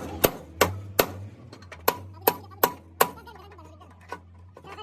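Hammer blows on metal in quick runs of three or four, each strike ringing briefly.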